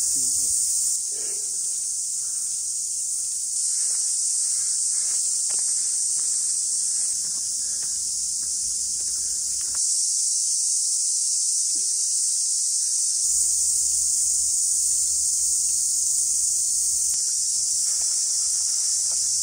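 Dense chorus of cicadas: a loud, steady, high-pitched shrill that steps a little up and down in level several times.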